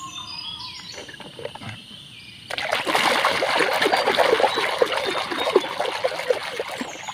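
A hand sloshing and swishing through soapy water in a plastic basin, splashing that starts suddenly about two and a half seconds in and keeps going.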